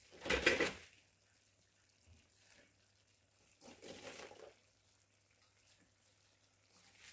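Handfuls of chopped cabbage, bok choy and carrot dropped into a pot of browned chicken: a short noisy burst just after the start and a quieter one about four seconds in.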